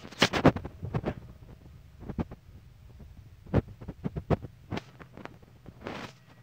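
Irregular knocks and bumps from a handheld camera being moved and handled, over a low steady hum.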